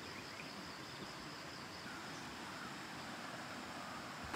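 Forest insects, cicadas or crickets, keep up a steady high, thin drone, with a few faint bird chirps over a soft outdoor hiss.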